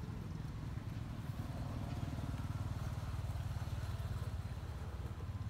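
An engine running steadily, a low rumble with a fast, even flutter.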